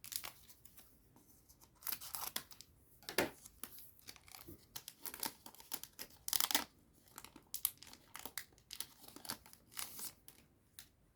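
A booster pack wrapper being torn open and crinkled by hand, a run of short, irregular tearing and rustling sounds.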